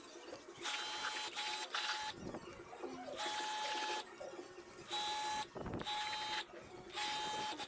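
A small electric motor starting and stopping repeatedly, with about six short runs of under a second each and short gaps between them; each run has a steady hum over a hiss.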